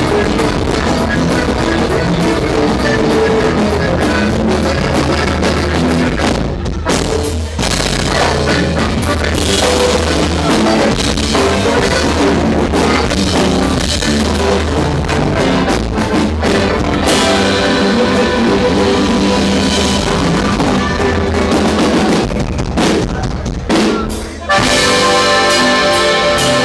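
Live norteño band playing: accordion, bajo sexto, electric bass and drum kit. The music drops briefly near the end and comes back in loud.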